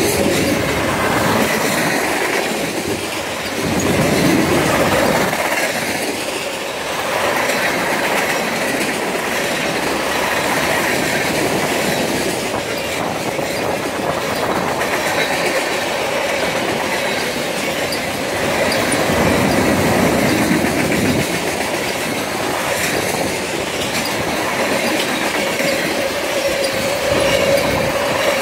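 Freight train rolling past at close range, a long string of lumber flatcars, covered hoppers and tank cars. Its wheels make a steady rumble and clatter on the rails, swelling louder twice as the cars go by.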